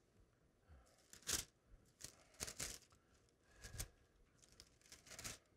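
Thin Bible pages being turned by hand, a few brief, faint paper rustles about a second apart as the pages are flipped to find a passage.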